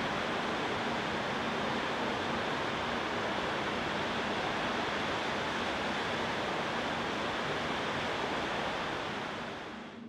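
Steady rushing water, like a stream or waterfall, fading out near the end.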